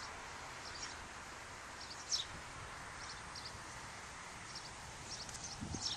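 Birds chirping in short, high calls over steady outdoor background noise, with one louder chirp about two seconds in.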